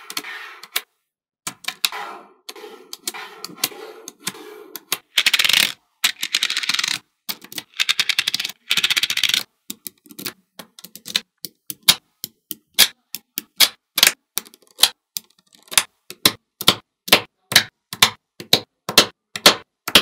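Small magnetic balls clicking as they snap together. A dense rattle of clicks comes a few seconds in, followed by a steady series of separate sharp clicks, about two or three a second, as pieces are pressed into place.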